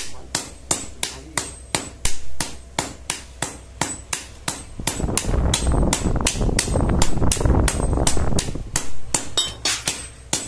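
Blacksmith's hammer striking steel on an anvil in a steady rhythm, about three ringing blows a second, forging a blade. For about three seconds in the middle a louder rushing noise swells up under the strikes.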